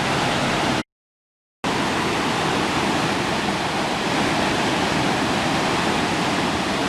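Fast-flowing river water rushing steadily and loudly. The sound cuts to dead silence for under a second shortly after it begins, then the rushing resumes unchanged.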